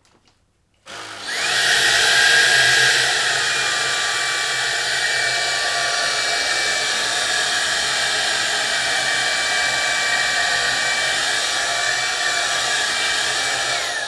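Hoover H-Free 500 cordless stick vacuum switched on about a second in, its motor spinning up with a rising whine and then running steadily, with the brush bar off. It begins to wind down right at the end.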